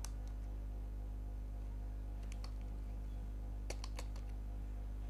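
A handful of faint computer-keyboard keystrokes, typed in small clusters, over a steady low electrical hum.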